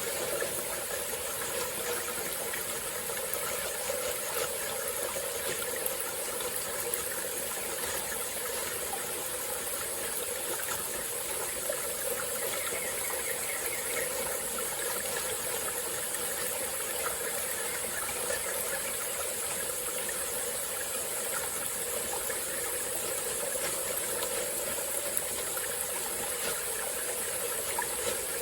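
Small forest stream flowing steadily over its bed, with an even high hiss running above the water sound.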